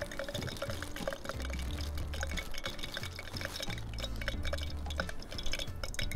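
Canola oil crackling and sizzling in a small frying pan on a Jetboil camp stove, with many small irregular pops.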